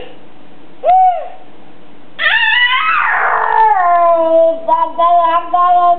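A toddler vocalizing: a short pitched sound about a second in, then a long drawn-out call from about two seconds in that slides down in pitch and holds steady, breaking a few times near the end.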